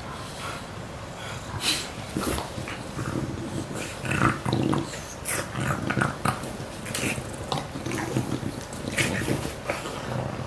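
Two English bulldogs play-fighting, one on its back mouthing at the other, with a run of short, irregular dog noises.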